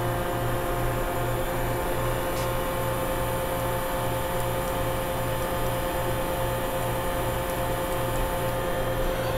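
Hitachi Seiki VS50 vertical machining center's spindle running at high speed, around 7,500 RPM. It makes a quiet, steady hum with a few held tones, over a low throb that pulses about three times a second.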